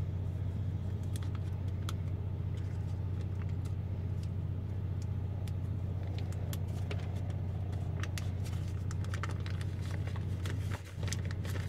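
Butter wrapper crinkling and crackling in the hands as softened butter sticks are unwrapped and squeezed out, busiest in the second half, over a steady low machine hum.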